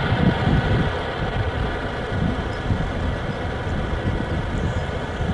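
Saab 340's twin turboprop engines droning steadily on approach: an even hum of several steady pitches over a low, uneven rumble.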